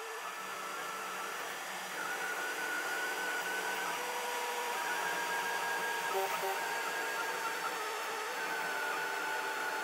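Delta 3D printer printing a first layer: a steady whirring hiss with the stepper motors whining in thin tones that switch pitch every second or two as the print head changes moves.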